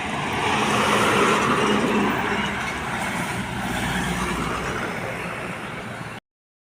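Heavy truck passing close by on a highway: engine and tyre noise that swells about a second in and then slowly fades. The sound cuts off abruptly near the end.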